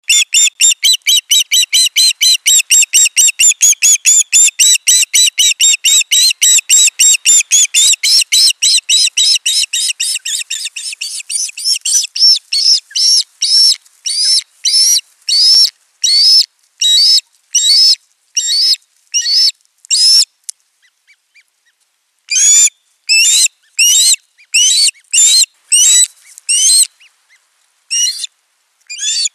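Female osprey giving a long series of high, short chirping calls, rapid at first (about five a second), then slowing to well-spaced calls, with a brief break about two-thirds through. This is the excited calling that greets the male arriving at the nest with a fish.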